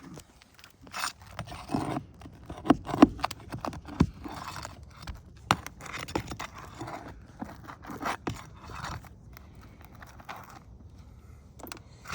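Roofing flat bar scraping and prying under asphalt shingles to work roofing nails out, with irregular scrapes and sharp clicks.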